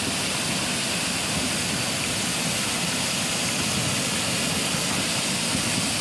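Steady rush of muddy floodwater pouring down into an erosion gully.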